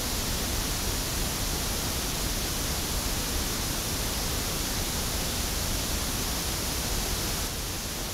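Steady pink-noise test signal from a loudspeaker, picked up by an Audix OM7 dynamic microphone. It drops a little in level near the end as a Radial JS3 transformer isolation split is plugged in, loading down the mic.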